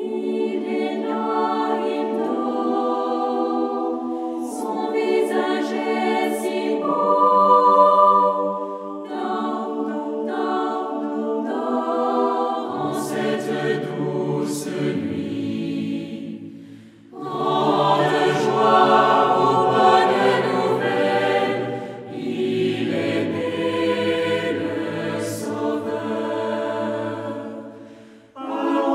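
Choir singing slow held chords in several voice parts; lower voices join about thirteen seconds in, and the singing breaks off briefly twice between phrases.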